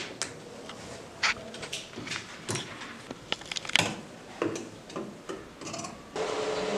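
Irregular light clicks, snips and taps of sewing work at a sewing table, scissors and the sewing machine handled by hand. About six seconds in they give way abruptly to a steadier background with a faint hum.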